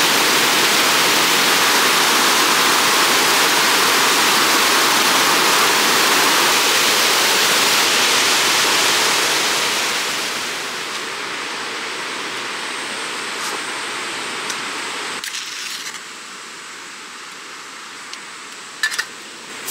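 Fast-flowing mountain stream, a loud, steady rush of white water over rocks. About ten seconds in it fades down, then cuts off a few seconds later, leaving a much quieter background with a few light clicks near the end.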